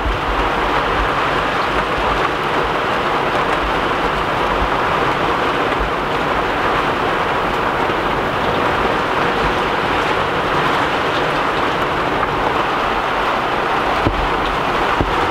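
Steady downpour of rain from a thunderstorm cell, with low gusts of wind buffeting the microphone near the start and again near the end.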